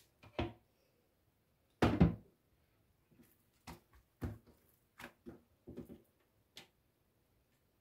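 A few dull knocks and taps from hands folding and pressing a sheet of flatbread against a metal baking tray, the loudest about two seconds in.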